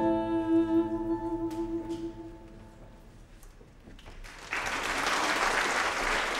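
The last held note of a song with accompaniment dies away over the first two seconds or so. After a short quieter pause, an audience breaks into applause about four and a half seconds in.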